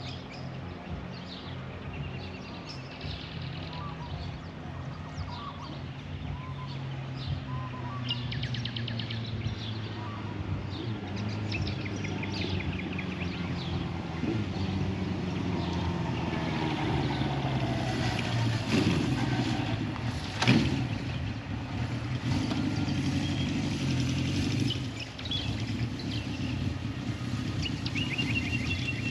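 Diesel locomotive of a narrow-gauge sugar tramway train running, its engine hum growing steadily louder, with a couple of sharp knocks about two-thirds of the way through. Birds chirp throughout.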